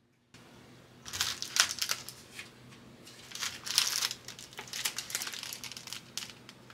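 Clear plastic strawberry packs, wrapped in film, crinkling and crackling as they are handled and picked up. The sound comes in several bursts of sharp crackles.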